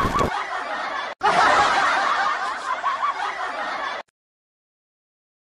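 Several people laughing and chuckling together, cut off abruptly after about four seconds into dead silence, with a brief dropout about a second in.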